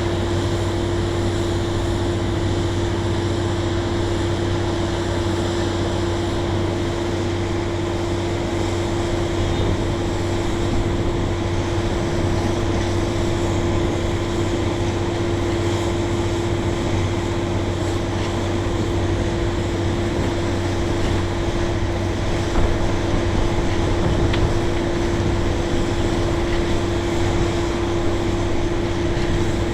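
Drilling-site machinery running steadily: a constant engine drone with a steady humming tone that holds one pitch throughout.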